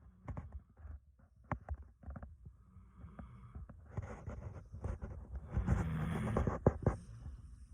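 A dog snoring: fainter breaths at first, then one long, loud snore a little past halfway, with a few small clicks along the way.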